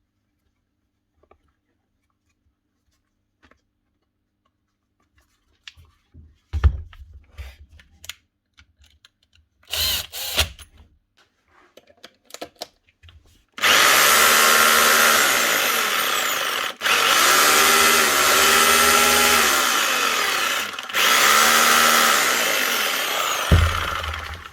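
Parkside drill's motor test-run after a bit of gravel blocking the direction-switch contact was cleared: a few handling clicks and a short blip of the motor, then the drill runs in long bursts, its speed rising and falling with the trigger, cutting out briefly twice.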